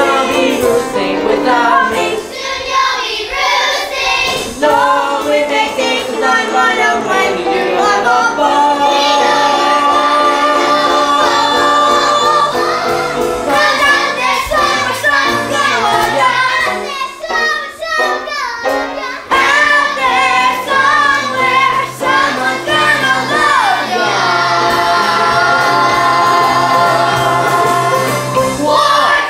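Children singing a stage-musical song together over instrumental accompaniment, with a brief break in the voices a little past halfway.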